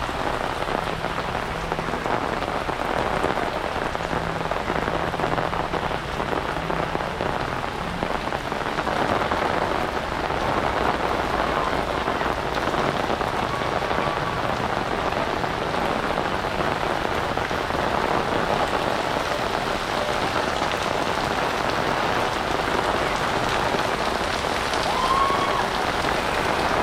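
Heavy rain pouring steadily onto surfaces during a thunderstorm downpour.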